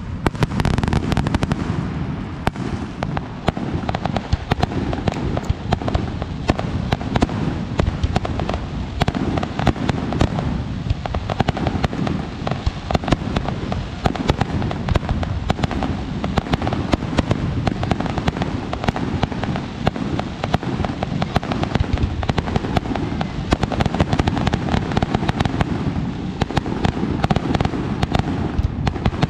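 Aerial fireworks display: shells bursting in a dense, unbroken barrage of bangs, many each second.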